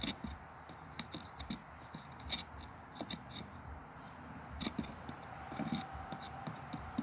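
Hands scraping and rustling through dry mouse-nest debris in a riding mower's engine compartment, with scattered light clicks and scratches of material against metal and plastic.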